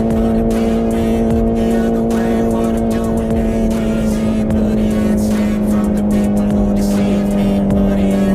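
Honda CBR650R's inline-four engine through an IXIL full-system exhaust with the dB killer removed, pulling at steady high revs while riding, its note sinking slowly as the throttle eases.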